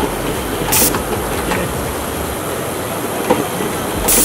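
Button-attaching machine being run through a cycle, with two short, sharp hisses about three and a half seconds apart over a steady loud exhibition-hall din.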